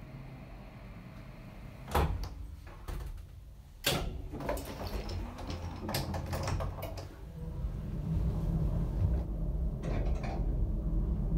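Elevator doors closing, with a loud clunk about two seconds in and a run of knocks and clicks from the door mechanism. After that the car starts up, and a steady low rumble of the cabin travelling upward sets in.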